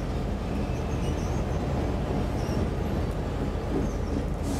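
Unpowered TEMU2000 Puyuma tilting-train cars rolling slowly past while being hauled: a steady low rumble of wheels on the rails.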